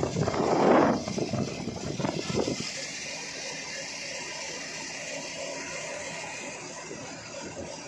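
Truck cab on the move: wind buffets the microphone at the open cab window for the first two or three seconds, then a steady rush of road and engine noise with light rattling.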